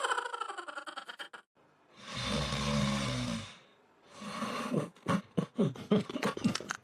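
Snore-like noisy breaths from an animal: two long ones, about two and four seconds in, then a quick string of short sounds.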